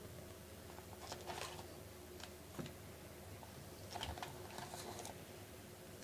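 Faint, scattered light clicks and rustles of baseball cards being handled and flipped through, in small clusters a second or two apart.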